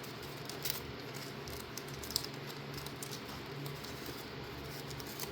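Faint handling noises: a few light clicks and soft rustles as stickers and a card are packed by hand, over a steady low hum.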